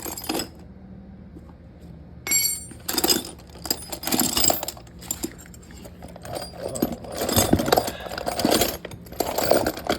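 Metal sockets and hand tools clinking and clattering as someone rummages through a tool set looking for a 13 mm socket. The clatter starts about two seconds in and comes in repeated bursts.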